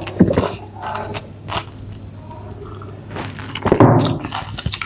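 Close-up eating sounds: biting and chewing burger and French fries, with wet mouth noises and scattered crunchy clicks.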